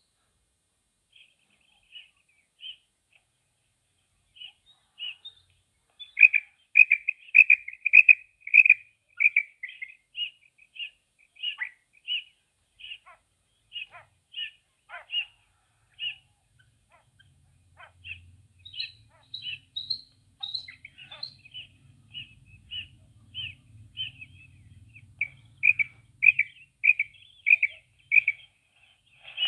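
Female common quail calling: repeated short, high chirping notes, with quick runs of louder notes about six seconds in and again near the end. A faint low hum sits under the calls for several seconds in the middle.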